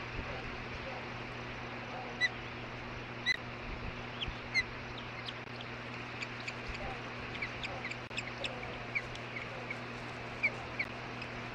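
Ospreys chirping: a few loud, short whistled calls, then a quicker run of chirps from about six seconds in. A steady low electrical hum and background noise lie under them.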